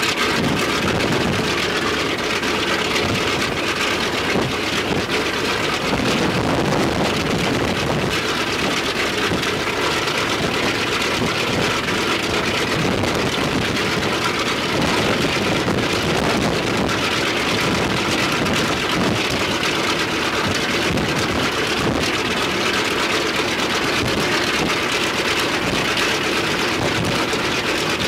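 The left engine of an Ilyushin Il-14T, a Shvetsov ASh-82T fourteen-cylinder radial piston engine, running steadily and loudly with no change in speed.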